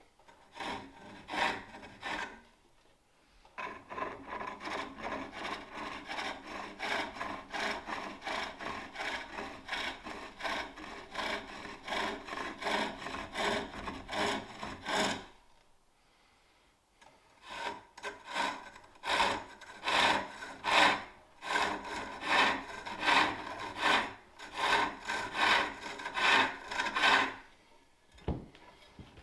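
Turning tool cutting a wooden bowl on a spring pole lathe: a rhythmic rasping cut that swells and fades with each treadle stroke as the work spins back and forth. It comes in long runs, with brief pauses near the start and in the middle.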